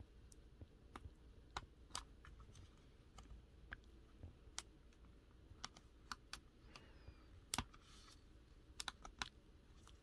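Faint, irregular small plastic clicks and taps as fingers work at a laptop's battery cable connector on the motherboard to unplug it, with a sharper double click a little past the middle and a quick run of clicks near the end.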